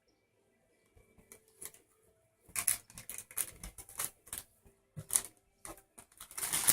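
A cat playing with a bunch of flowers: irregular light clicks and rustles of stems and leaves, a dozen or so, starting about a second in.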